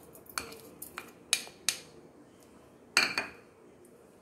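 Plastic spoon and bowl knocking and scraping against a stainless steel mixer-grinder jar as thick tamarind paste is pushed in. A handful of sharp clinks and knocks come over the first two seconds, then the loudest clatter about three seconds in.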